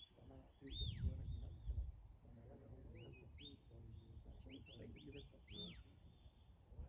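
Shepherd's whistle giving dog commands: a series of clear whistled notes that sweep up and back down, the same arching note sounding about a second in and again near the end, with quicker short chirps between, over a low wind rumble.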